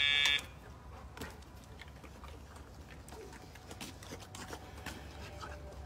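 A remote dog-training collar gives one short buzzy electronic beep, under half a second long. It is followed by faint light ticks of a dog's claws on concrete.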